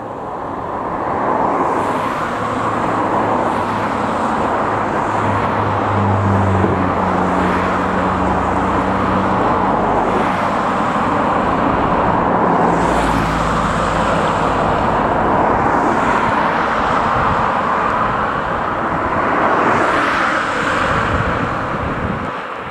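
Freightliner Class 66 diesel locomotive, its EMD two-stroke V12 engine running with a steady low drone as it hauls a train of box wagons slowly over pointwork, with a continuous rumble of wheels on rail.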